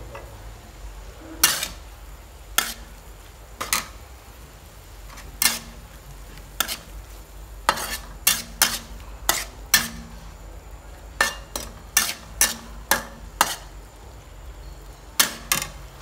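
Spatula clanking and scraping against a metal wok as beef is stir-fried: about eighteen sharp strikes at an uneven pace, starting a second and a half in and coming thickest in the middle.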